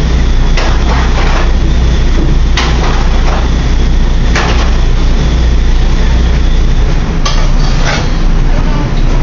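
Metal sauté pans clanking and scraping on a gas range's grates, several sharp clatters spread through, over the steady low hum of a commercial kitchen's ventilation.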